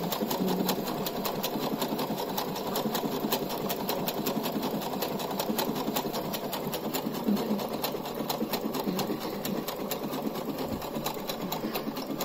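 Electric sewing machine running steadily, the needle mechanism ticking in a fast, even rhythm as it sews a selected pattern stitch.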